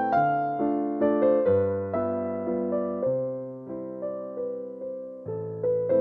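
Background music: a piano playing a slow melody over low bass notes, each note struck and fading, about two a second.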